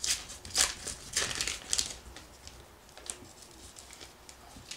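Baseball card pack wrapper being torn open and crinkled by hand. The crackling is loudest in the first two seconds, then gives way to softer rustling and small ticks as the wrapper is peeled back and the cards are handled.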